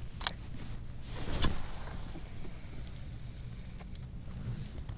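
Outdoor wind rumble on the microphone with a high hiss for a couple of seconds, and two short knocks, the louder about one and a half seconds in.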